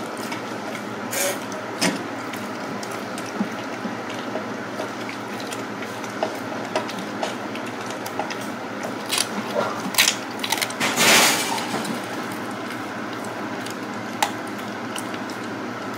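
Siberian husky eating a raw chicken back from a stainless steel bowl: irregular clicks and crunches as it chews the bones, with knocks of the metal bowl. A louder burst of knocking and scraping comes about two-thirds of the way through.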